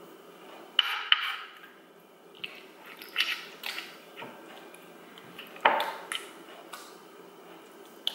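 Raw chicken breast being handled and cut with a kitchen knife on a wooden cutting board: irregular sharp taps of the blade on the board mixed with wet squishing of the meat, the loudest taps about a second in and near six seconds.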